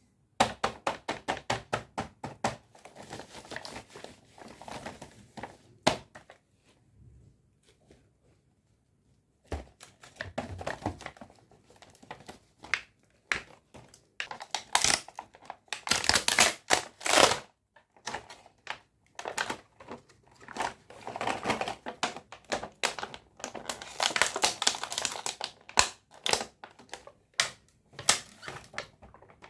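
Small plastic toy tableware and food pieces being unpacked and handled. There is a fast run of sharp plastic clicks at the start, then bursts of crinkling packaging and more clicking and tapping, with a few seconds of quiet about a third of the way through.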